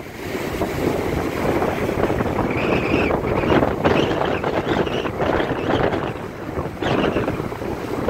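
Strong wind buffeting the microphone, rising and falling in gusts, over surf breaking and foam washing up the shore.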